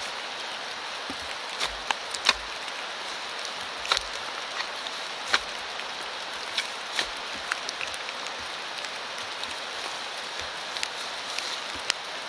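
Steady rain hiss with scattered sharp ticks and knocks, as a mat of wood rush turf is cut and torn up from the forest floor by hand.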